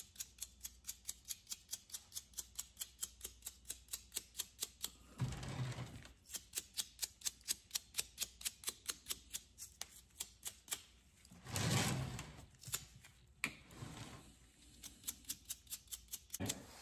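Bristles of a cut-down chip brush flicked over and over to spatter thinned paint onto a latex mask: an even, rapid ticking at about five flicks a second, broken a few times by a short, louder noisy sound.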